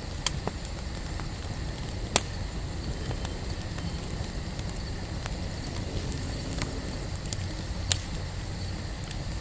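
Wood campfire burning with a steady low rumble and scattered crackles, with three sharp, louder pops: one just after the start, one about two seconds in and one near eight seconds.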